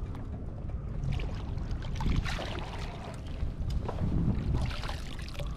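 Water splashing as a fluke thrashes while being scooped into a landing net, loudest from about two to five seconds in. Scattered small clicks and knocks sound over a constant low rumble of wind on the microphone.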